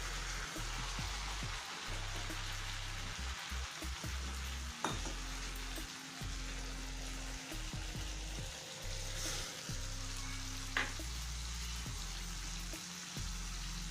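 Onion-tomato paste sizzling steadily as it fries in hot mustard oil in a kadhai. A spoon clicks sharply against the pan twice, about five and eleven seconds in.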